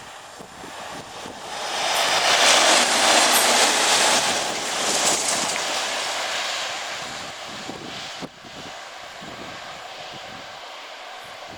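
A pair of British Rail Class 37 diesel locomotives, with English Electric V12 engines, passing by under power: the engine noise swells from about a second in, is loudest around two to five seconds, and then fades away slowly.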